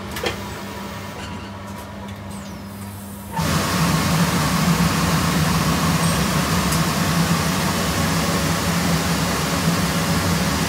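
Ajax shirt-finishing machine starting its cycle: over a low steady hum, a sudden loud, even rush of air begins about three seconds in and keeps going as the blower inflates and dries the shirt on its form.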